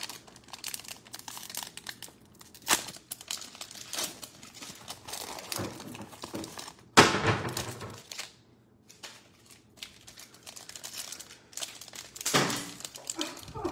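Foil trading-card pack wrappers crinkling and tearing as they are opened by hand, in irregular bursts, the loudest a little past halfway.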